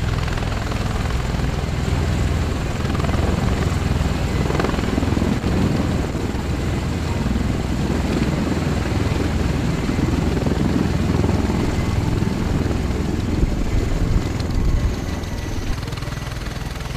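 An MD 530-series light helicopter flying, its rotor and engine making a steady sound. A few brief louder sounds come about fourteen seconds in.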